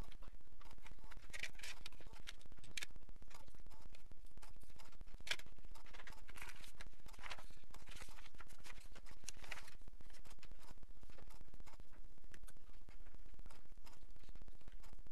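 Sheets of paper being handled and slid over a table: rustles and scrapes in bursts over the first ten seconds, then lighter ticks and scratches as a pencil writes near the end. A steady low hum runs underneath.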